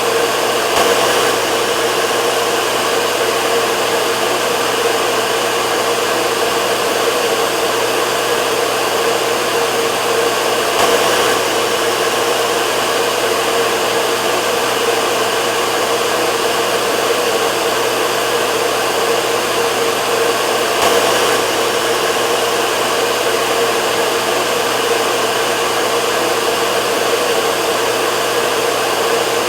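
Hair dryer running steadily: an even rush of air over a constant hum, swelling slightly about every ten seconds.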